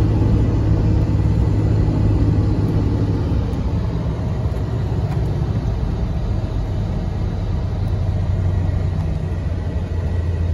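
Toyota Tacoma pickup on the move, heard from inside the cab: a steady low engine hum under tyre and road noise, easing off slightly after a couple of seconds.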